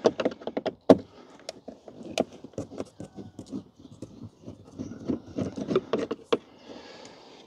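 Phillips screwdriver turning out the single screw that holds a car door's trim panel: a run of small irregular clicks and scrapes, with a few sharper clicks among them.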